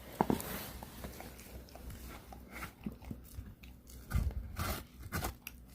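A pit bull biting and chewing on watermelon rind, with scattered crunches and a louder bite about four seconds in.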